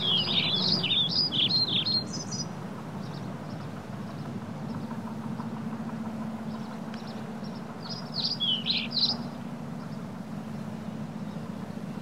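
Songbird chirping in quick runs of down-slurred notes, one burst in the first two seconds and another around eight to nine seconds in. Under it runs the steady low rumble of a bicycle rolling on a paved path, with a low hum that steadies about halfway through.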